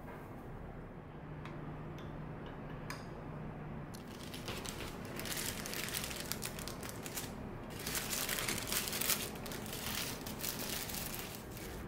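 A few faint clicks, then from about four seconds in, paper donut wrappers crinkling and rustling as hands handle and unwrap the donuts.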